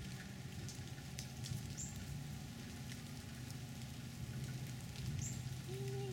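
Light rain pattering on wet pavement over a steady low hum. Near the end a puppy gives one short, high whine.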